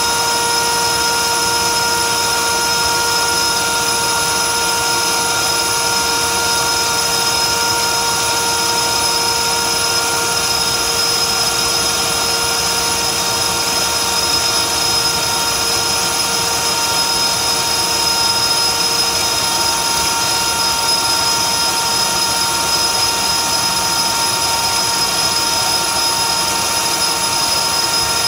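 Dynamax 127 mm electric ducted fan, driven by a TP-5850 700kv motor, running flat out at about 28,000 rpm: a loud, steady rushing whine with several fixed tones. The pitch eases very slightly lower as the lipo pack's voltage sags and the fan slows.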